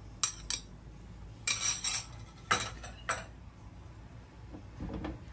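A metal utensil clinking and scraping against a ceramic bowl as the last of the beaten egg is scraped out into the frying pan: a few sharp clinks, then several short scrapes over about three seconds. A fainter scrape follows near the end.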